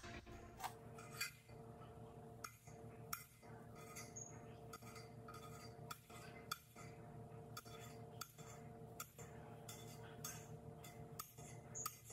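A kitchen knife slicing smoked sausage into rounds, the blade tapping down on the hard cutting surface about once or twice a second. The taps are faint, over a steady low hum.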